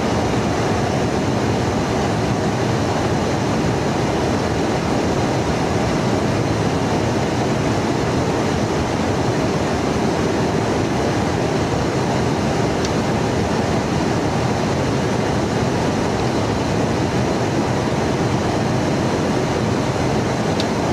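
Steady, unbroken roar of an aircraft in flight, jet engine and rushing air noise heard from inside a tanker aircraft during boom refueling.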